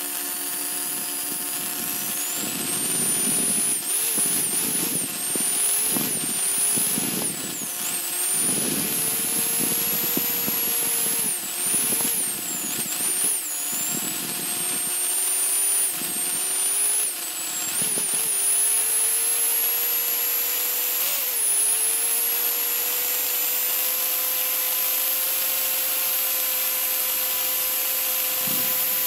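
Electric whisk beating eggs and sugar in a glass bowl. For the first half the motor tone wavers and dips under the changing load, over a rough churning noise. It then settles into a steady hum that climbs slowly in pitch as the mixture whips up into a thick foam.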